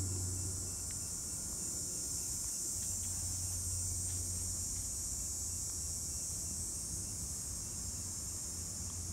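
A steady, high-pitched chorus of insects goes on without a break, with a steady low hum underneath.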